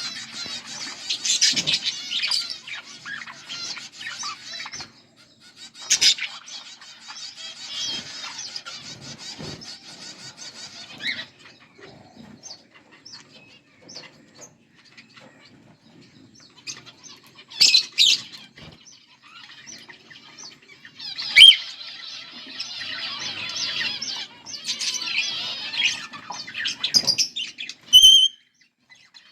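A pair of budgerigars chattering and warbling in long, dense runs of high chirps, with a sparser stretch in the middle broken by a few sharp single calls, and a loud clear call near the end.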